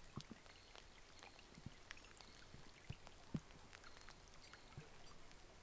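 Light rain falling on still water: faint, irregular drop sounds over a soft hiss, one drop louder about halfway through.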